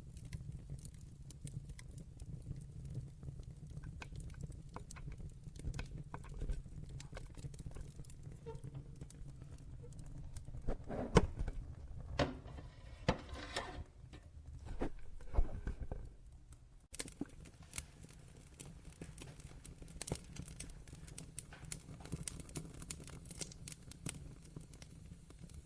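Wood fire in a fireplace crackling: irregular sharp pops and snaps over a low rumble, with a run of louder pops near the middle.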